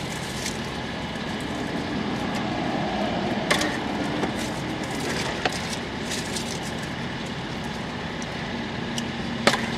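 Steady low hum and hiss of a vehicle cabin with the engine idling, broken by a couple of sharp clicks, one about three and a half seconds in and one near the end.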